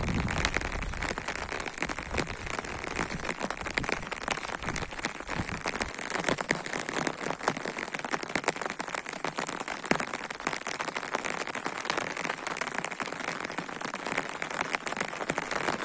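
Heavy rain falling, a dense, steady patter of countless drops striking the ground.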